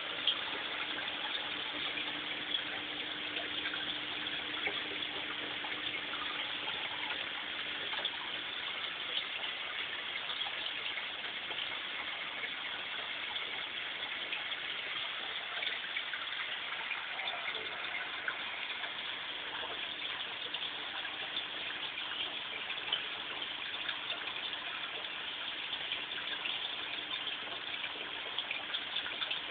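Water gushing and splashing steadily in a koi pond, with a faint steady hum that fades out midway and comes back near the end.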